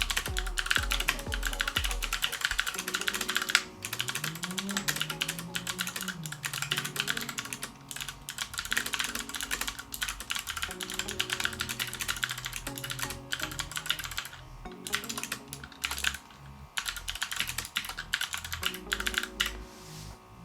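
Fast, continuous typing on a mechanical keyboard with clicky Kailh Bronze switches, a dense stream of loud, clicky keystrokes, with background music underneath.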